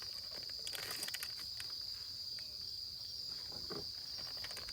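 Insects chirring in one steady, high-pitched trill, with a few faint clicks and rustles over it.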